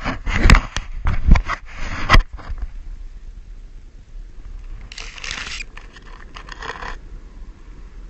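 Handling noise from a hand-held camera: several hard knocks and scrapes in the first two seconds or so, then a longer scraping rustle about five seconds in.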